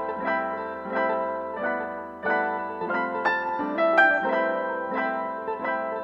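Background piano music: gentle notes and chords struck about one and a half times a second, each ringing and fading.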